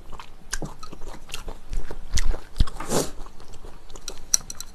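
Close-up chewing of chewy Chinese glass noodles in spicy sauce: wet mouth clicks and smacks, with a brief louder noise about three seconds in. A few light clinks near the end.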